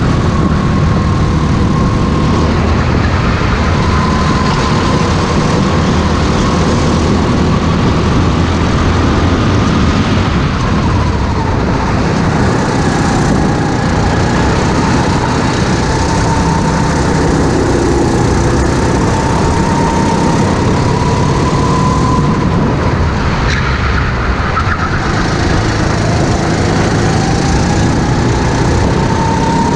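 Racing kart's engine heard onboard at speed, its pitch rising and falling steadily through the corners of a lap.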